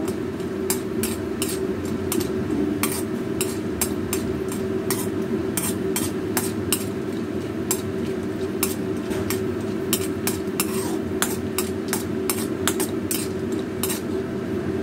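Metal ladle scraping and clinking against an iron kadai as peanuts are stirred and roasted in it: irregular clicks and scrapes several times a second, over a steady low hum.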